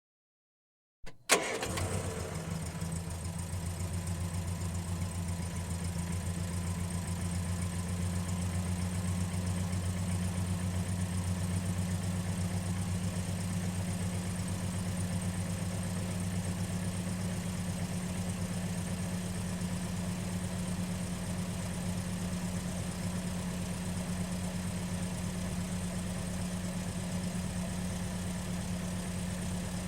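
Ford Fiesta engine starting about a second in, with one brief loud burst as it catches, then idling steadily.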